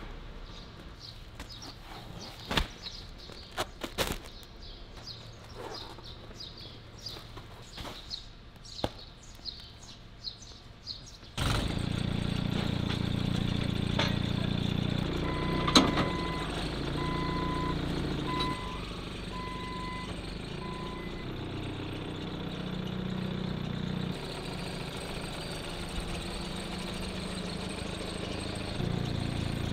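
A few sharp knocks and clicks with faint bird chirps. Then, about a third of the way in, a Hyundai forklift's engine runs steadily while it handles rolls of artificial turf, and its warning beeper sounds a short run of evenly spaced beeps.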